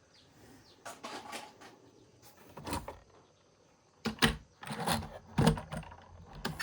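Scattered sharp knocks and clatters, with a few in the first three seconds and a quicker, louder cluster in the second half.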